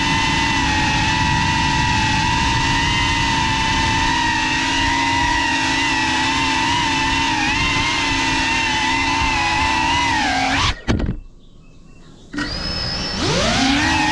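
FPV drone's electric motors and propellers whining steadily, the several tones rising and falling together with the throttle. About eleven seconds in the whine drops away sharply and stays quiet for about a second and a half, then spools back up with a rising whine.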